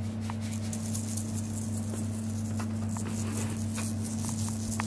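Table salt shaken from a canister, the grains pattering onto paper and wet glue in a fine scatter of tiny ticks. A steady low hum runs underneath.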